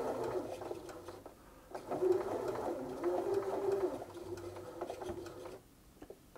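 Bernina B380 computerised sewing machine running unthreaded on zigzag, with a wavering motor hum that pauses about a second in, resumes, and stops near the end. The needle does not swing side to side: the zigzag drive is not working, which the repairer puts down to a faulty driver chip or other damage on the board.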